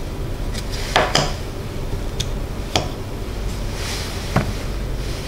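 A few light clicks and taps from a small plastic Aqara door and window sensor being handled and set down on a table, about five in all, spread irregularly.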